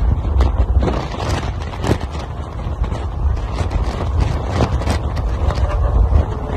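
Wind buffeting the microphone over a low, steady road rumble from a car moving at highway speed, with irregular gusty thumps.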